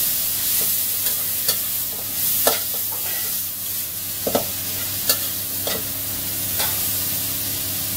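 Pork and bell peppers sizzling steadily as they are stir-fried in a steel wok over a gas flame. A metal ladle scrapes and clanks against the wok at irregular intervals, about once a second.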